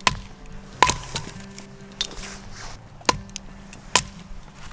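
Campfire of split firewood burning in a fire stand, crackling with sharp pops about once a second, over background music.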